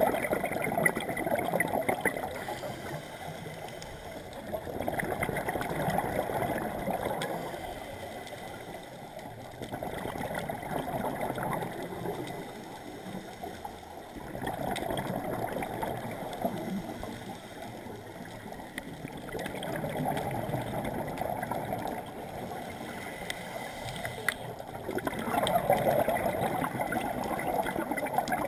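Scuba regulator breathing heard underwater: a gurgling rush of exhaled bubbles that swells and fades about every five seconds, six breaths in all.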